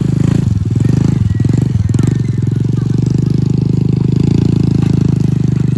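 Vehicle engine running steadily at a low pitch, with a few brief dips in its note in the first two seconds.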